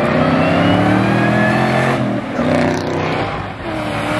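A car engine accelerating hard and revving up, its pitch climbing, then dropping at a gear change about two seconds in and again near the end before climbing once more.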